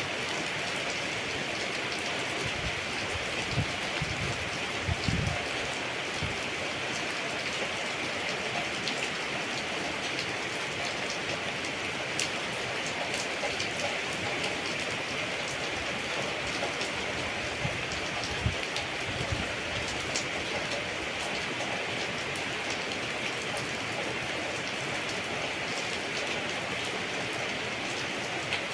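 Steady rainfall on a tropical salak palm garden: an even hiss of rain with many scattered sharp drop taps. A few low thuds come about three to six seconds in and again around eighteen to twenty seconds in.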